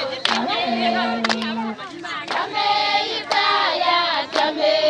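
A group of voices singing, holding long notes, over a sharp beat that falls about once a second.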